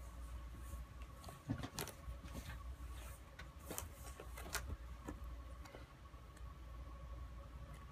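Irregular faint clicks and taps of hard plastic as a cat squirms and paws inside a red ring-shaped plastic cat toy, over a steady faint hum.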